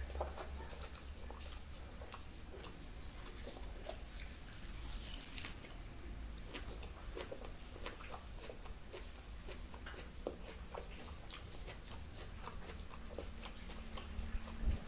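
Close-miked chewing and biting of food, with many small wet mouth clicks and one brief, louder hissy sound about five seconds in.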